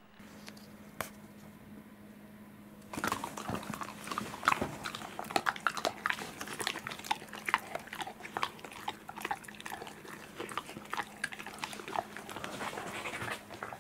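Corgis making close-up mouth and movement noises: a dense run of irregular clicks and smacks that starts about three seconds in.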